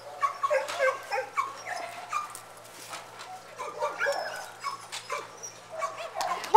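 Several kennelled dogs barking and yipping, in short overlapping calls at different pitches.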